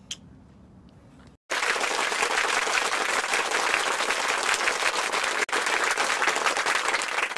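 Applause from a crowd, many hands clapping, starting suddenly about a second and a half in and running on with a brief break near the middle.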